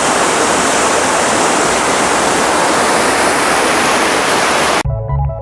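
Waterfall: the steady, loud rush of falling water. It cuts off abruptly near the end, and electronic keyboard music with a pulsing bass starts.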